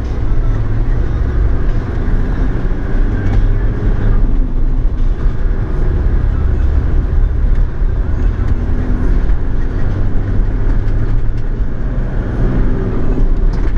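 Steady road and engine rumble inside a moving car's cabin, a deep continuous drone with no let-up.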